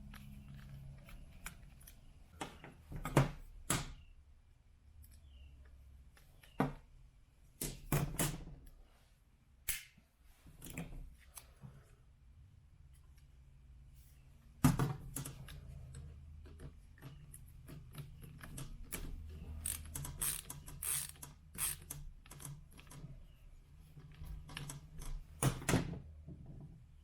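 Scattered clicks and clacks of screws, a screwdriver and the soundbar's metal and plastic parts being handled while it is taken apart. Sharp knocks come about 3, 8, 15 and 25 seconds in, over a low steady hum.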